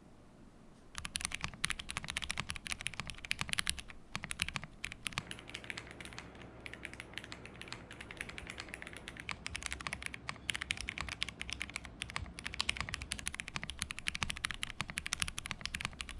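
Fast typing on a Tiger Lite mechanical keyboard with lubed vintage Cherry MX Brown tactile switches, GMK keycaps and a one-layer tape mod: a dense, continuous run of key clicks. It starts about a second in, with a brief pause around four seconds.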